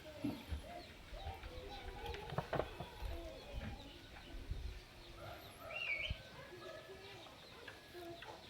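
Many short animal chirps and calls overlapping, with a warbling higher call about six seconds in and a few low knocks.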